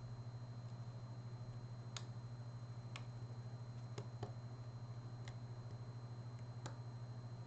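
Faint, irregular clicks of a lock pick tapping the pins inside a GeGe AP2000 lock, about six in all, over a steady low hum.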